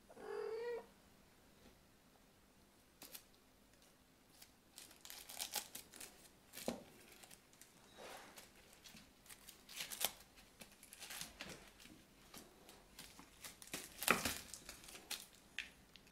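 A kitten mews once, briefly, at the start; then irregular scratching, rustling and light knocks as kittens clamber about inside a mesh wastepaper basket.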